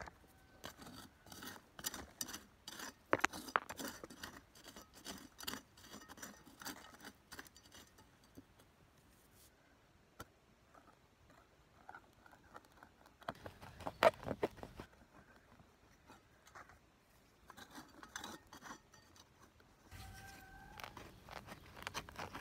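A narrow metal hand trowel digging into dry, stony soil around garlic plants: repeated short scrapes and crunches of the blade against earth and grit, with one louder strike midway.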